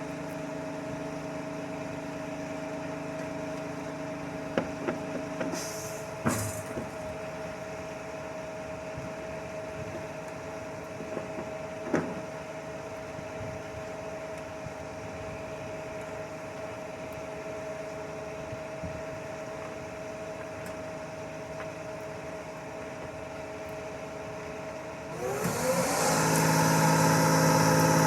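Concrete mixer truck's diesel engine running steadily, with a few sharp knocks, then revving up about three seconds before the end and holding at the higher speed, louder.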